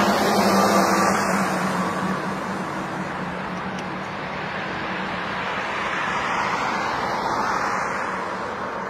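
Boeing 747's four jet engines running as the airliner rolls on the runway: a steady rushing jet noise with a low hum beneath, loudest in the first couple of seconds and then easing slightly.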